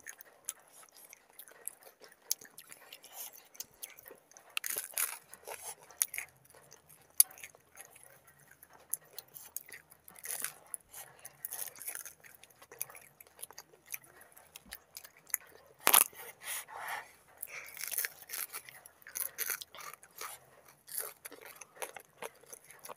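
People chewing and biting into samosas, with irregular crisp crunches of the fried pastry and one louder crunch about sixteen seconds in.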